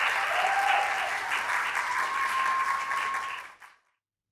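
Audience applauding, steady clapping that cuts off suddenly about three and a half seconds in.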